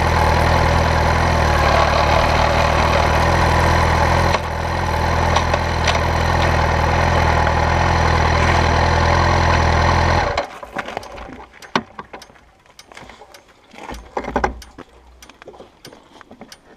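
Motorcycle engine running steadily at idle, then switched off about ten seconds in, cutting off abruptly. After that there are only scattered light clicks and knocks.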